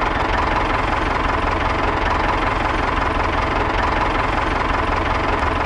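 Tractor engine idling steadily with a fast, even knocking chug.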